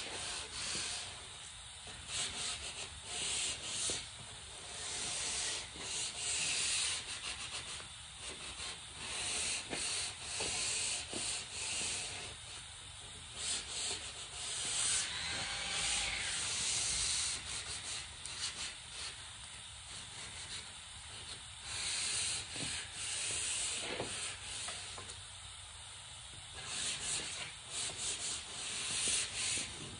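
Sandpaper rubbed by hand over the wood of a fluted column, in uneven back-and-forth strokes of scratchy hiss.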